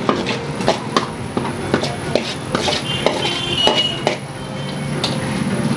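A metal spatula scraping and knocking against a large metal pan, with repeated irregular clinks, as cooked poha is scraped out into a pot.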